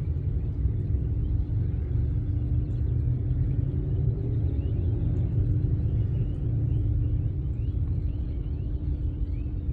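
Steady low outdoor rumble with a faint constant hum, and faint short high chirps in the second half.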